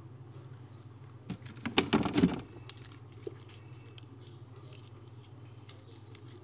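Things being shifted and handled in an open refrigerator: a short burst of rattling and knocking about a second and a half in, with a few small clicks after, over a steady low hum.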